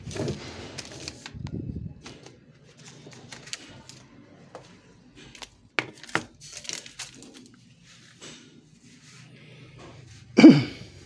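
Handling noise as rolls of plastic cup-sealer lid film are moved and set down: rustling of the plastic film, a few sharp clicks in the middle, and a louder knock near the end.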